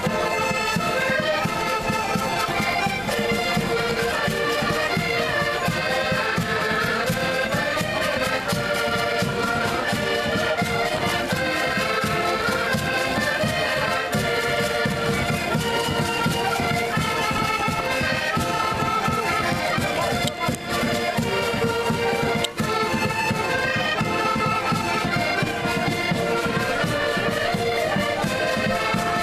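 A band of several diatonic button accordions (Portuguese concertinas) playing a traditional folk tune together.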